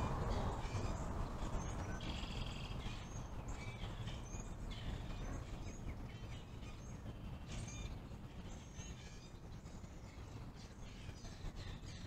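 Birds chirping and calling in many short, scattered notes over a low rumble of distant road traffic. The traffic is loudest at the start and fades away over the first few seconds.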